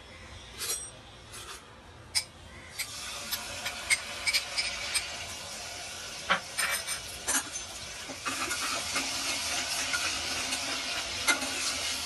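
Ginger-garlic paste sizzling in hot oil in a pressure cooker. The hiss starts about three seconds in and grows louder later, with scattered clicks and knocks of a metal slotted spoon stirring against the pot.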